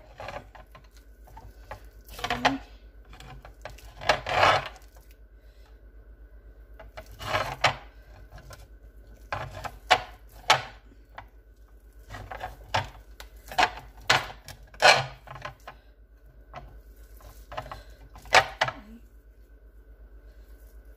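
Bare hands squishing and kneading a sticky, gooey mashed plantain dough in a glass bowl, rubbing and squelching in irregular bursts.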